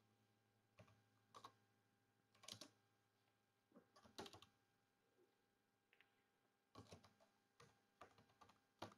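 Faint, unhurried typing on a computer keyboard: a dozen or so single keystrokes, spaced irregularly, as a short terminal command is typed.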